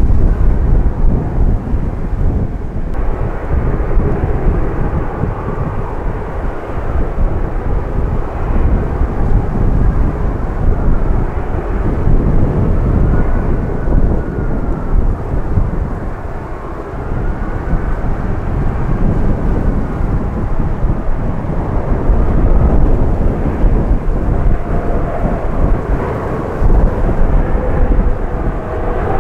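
Airbus A380 on final approach: its four Rolls-Royce Trent 900 engines make a loud, heavy low rumble, with a faint whine that swoops up and down midway as the jet passes.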